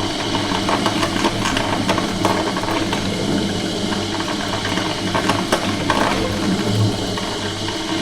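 Coffee machine running: its pump hums steadily under a busy rattle, with water and steam hissing through it.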